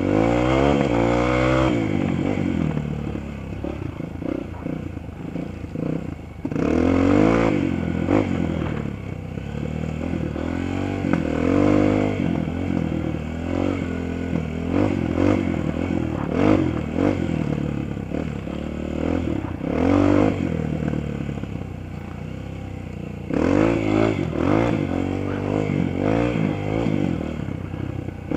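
Dirt bike engine being ridden off-road, revving up through the gears and easing off over and over. The pitch climbs hard about a second in, then again around seven, twelve, sixteen, twenty and twenty-four seconds in, with the engine settling lower between climbs.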